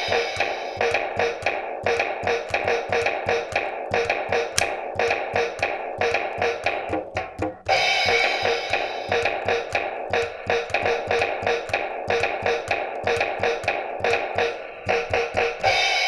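Toy electronic finger drum set played fast with the fingertips: quick sampled kick, snare, tom and cymbal hits over a backing music track. The playing drops out briefly about seven and a half seconds in and fades near the end.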